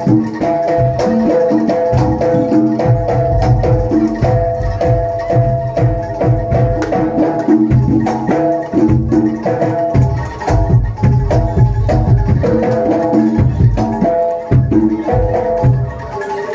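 Jaranan accompaniment on a Javanese gamelan-style ensemble: hand drums beat a dense, driving rhythm under repeated pitched metallophone notes.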